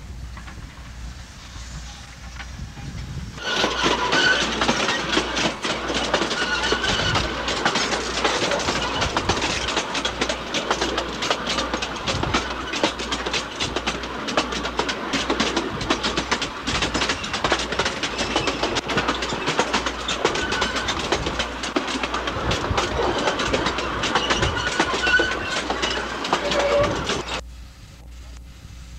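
A moving train heard from aboard: a loud, dense, continuous clatter and rattle of wheels and coupling gear on the track. It starts suddenly a few seconds in and cuts off abruptly just before the end.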